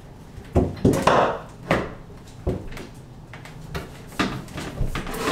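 Floor-to-ceiling corner shower rack being wedged into place between floor and ceiling: a string of knocks and rattles from the pole and shelves, several in quick succession in the first two seconds, then a few more spaced out.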